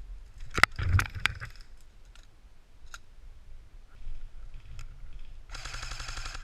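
Airsoft guns firing: a few sharp single shots about half a second to a second and a half in, then a rapid burst of about a second near the end.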